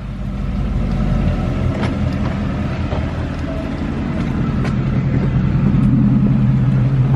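A car pulling up close with its engine running, a steady low hum that grows gradually louder.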